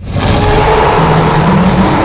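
Loud, harsh roar of the fictional monster Spinodra, a designed creature sound effect, bursting in suddenly with a steady low growl held through it.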